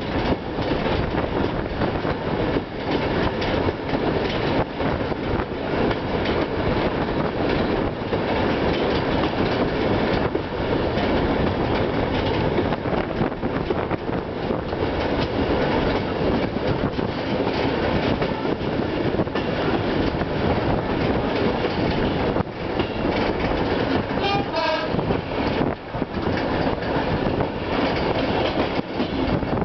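Open passenger wagon of a tourist train rolling along the track, heard from on board: a steady rumble with the clatter of the wheels on the rails.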